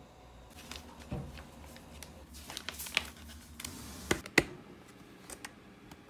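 Hands handling a plastic bag at a Sansopang vacuum sealer: crinkling and rustling with scattered small clicks, then two sharp clicks about four seconds in.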